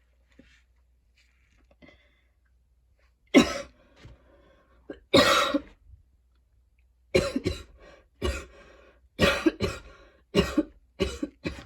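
A woman's coughing fit, an attack described as painful and choky. After about three seconds of near quiet come harsh coughs, two at first, then in quick pairs and short runs.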